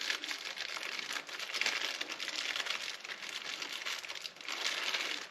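Crinkling plastic packaging, likely the small bag of screws and Allen wrenches from the monitor arm kit, handled and rummaged through continuously.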